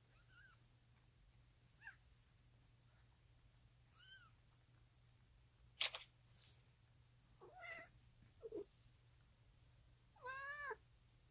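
Newborn kittens giving about six short, high-pitched mews at intervals, the last one a little longer. A single sharp click about halfway through.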